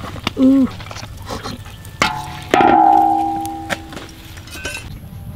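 A metal cooking spatula struck once, giving a sharp clang that rings for about a second and fades. Before it come a brief wavering tone and a few light clicks.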